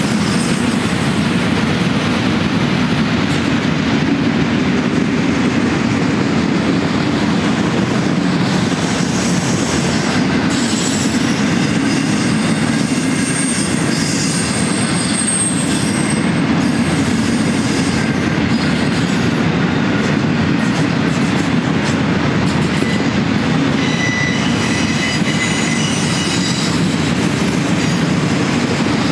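Auto-rack freight cars rolling past: a steady rumble of steel wheels on the rails, with brief high wheel squeals around the middle and again near the end.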